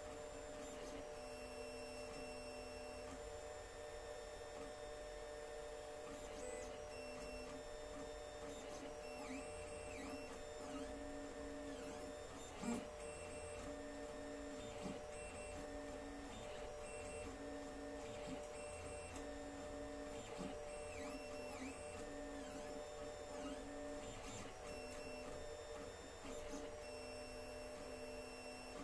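Alfawise U10 3D printer printing: its stepper motors give short whining tones that start, stop and change pitch with each move of the print head, over the steady hum of its cooling fans. There is one sharp click about halfway through.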